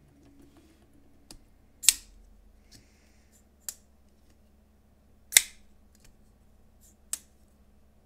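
Titanium framelock folding knife (Hoback OneSam) being flipped open and shut: a handful of sharp metallic snaps and clicks as the blade swings out and locks, the loudest about two and five and a half seconds in, with lighter clicks and a faint scrape between.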